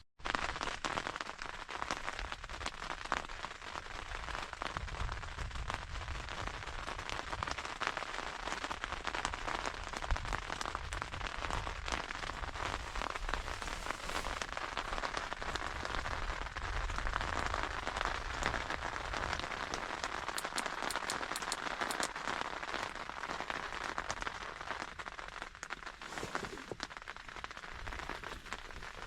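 Heavy rain falling steadily on a tent, a dense hiss of many fine drop impacts.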